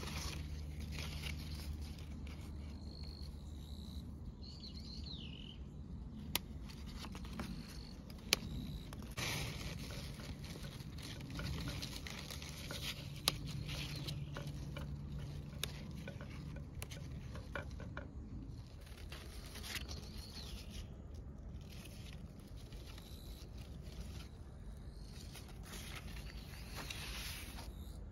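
Fig leaves rustling and brushing close to the microphone as small green figs are thinned off a branch by hand, with a few sharp clicks.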